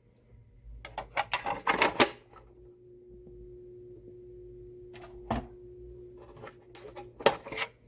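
Plastic front cover of a QNAP TS-253D NAS clicking and clattering as it is handled, with a steady buzz from the cover for about five seconds that stops near the end amid more clicks. The buzz is the cover vibrating against the running NAS, a fault of the cover's design.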